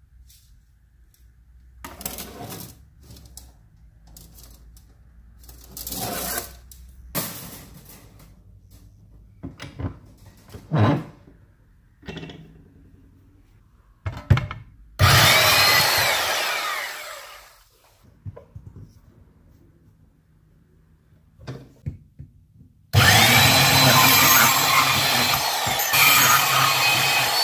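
Scattered knocks and clatter of tools and metal being handled, then a hand-held power saw briefly run and winding down with a falling whine about halfway through. Near the end the saw starts up with a rising whine and runs loud and steady, its blade cutting into copper pipe held in a bench vise.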